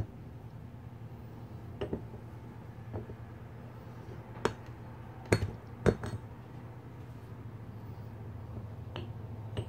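Light metal clinks as a new roller bearing is worked down by hand into a zero-turn mower's deck spindle housing: about six sharp taps, the loudest two close together in the middle.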